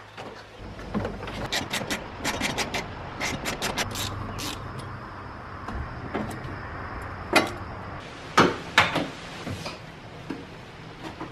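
Hands-on work noises: a run of sharp clicks and clatters from plastic cargo-floor trim and a wrench being handled at the battery terminal, then three louder sharp knocks in the second half.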